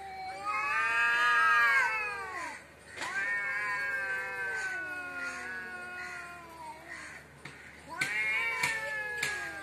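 Two domestic cats caterwauling at each other in a face-off: long, drawn-out, wavering yowls one after another, the loudest in the first two seconds. This is the threat yowling of a cat fight standoff.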